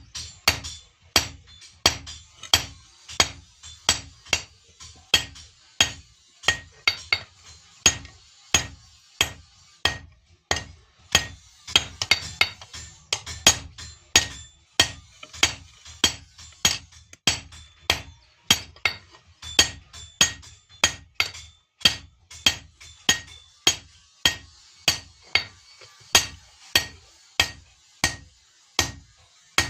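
Hand hammer striking iron on an anvil in a steady forging rhythm, about one and a half to two blows a second, each blow with a short metallic ring.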